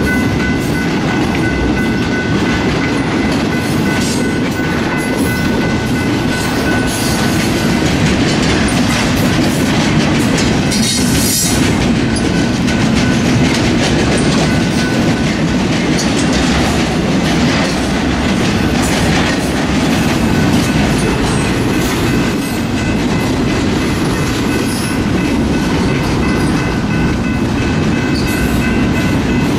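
Intermodal freight train of trailers and double-stack container cars rolling steadily past, wheels clacking over the rail joints. A steady high-pitched ringing tone stands out at the start, fades after several seconds and comes back near the end.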